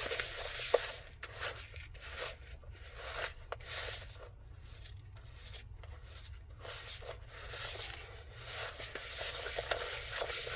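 Spoon stirring and scraping through a stiff, dry mix of peanut butter and powdered ingredients in a bowl, with small clicks of the spoon against the bowl. It goes quieter in the middle, then picks up again.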